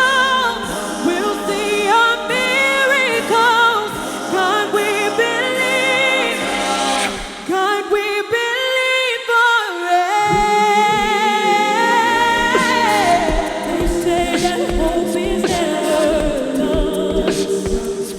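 Gospel vocal group singing in layered close harmony with ornamented runs. About halfway through, the low parts drop out for a couple of seconds under one long held high note.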